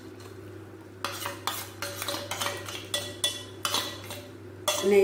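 Steel spoon scraping and clinking against a steel bowl and pan as a wet ground paste is scraped out. It starts about a second in, as a dozen or so irregular metallic strokes with short ringing.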